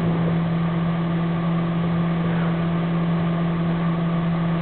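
Microwave oven running with a steady low hum while it cooks a bag of microwave popcorn; the kernels have not started popping yet.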